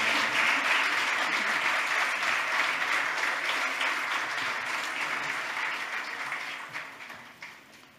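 Large audience applauding, the clapping fading away over the last second or two.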